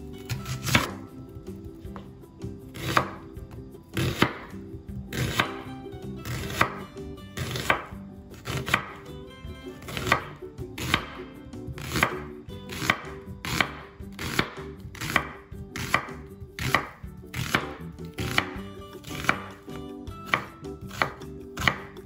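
Chef's knife slicing a white onion on a bamboo cutting board: a crisp cut ending in a knock of the blade on the board, about once a second, growing a little quicker over time.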